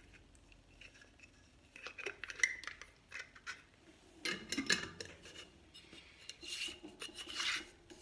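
Glass jars with metal screw-band lids and glass knob tops being handled and assembled: scattered clinks and clatters of metal and glass, then a couple of longer rasping scrapes near the end.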